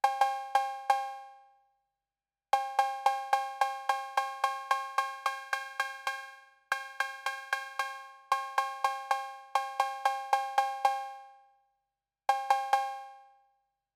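TR-808 cowbell clone synth module, whose two oscillators are set at 540 and 800 Hz, triggered repeatedly, about three to four hits a second, in runs broken by short pauses. Its output resonant filter is adjusted while it plays.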